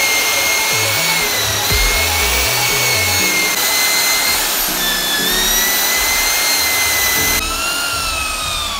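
Electric drill spinning a polishing wheel against an aluminium bicycle rim: a steady high motor whine with a hiss. Its pitch shifts slightly a couple of times, and it drops in level near the end.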